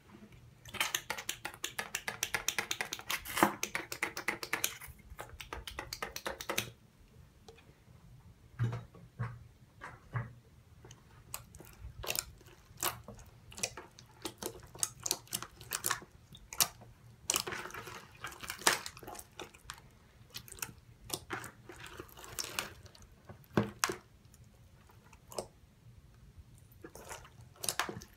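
A big mass of mixed slime squished and kneaded by hand in a bowl, making wet clicking and popping squelches. The clicks come thick and fast for the first six seconds, then sparser and in clusters.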